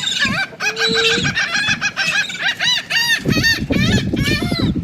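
A flock of birds calling over one another, many short repeated calls in quick succession with a brief held note about a second in.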